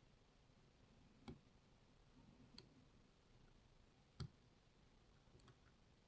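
Faint, scattered metal clicks of tools working in a Lockwood MT5 lock. Two sharper clicks come about a second in and just past four seconds, with fainter ticks in between.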